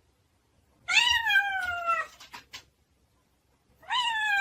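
A cat meowing: two long, drawn-out calls, each falling in pitch, the second starting about three seconds after the first.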